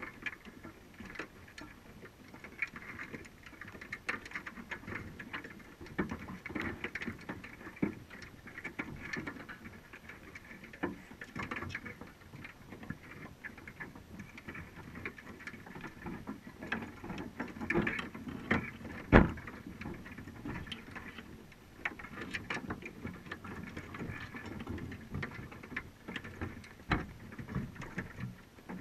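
Crabs' legs and claws clicking and scraping on the wire mesh of a crab trap and its bait cage, heard underwater. The ticks come at irregular times, with one sharp knock about two-thirds of the way through.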